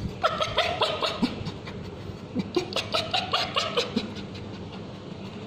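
Small Bichon Frise dog yelping in two quick runs of high-pitched cries, the first about a second long and the second nearly two seconds, as ointment is put on its scabies-sore tail: distress cries during the treatment.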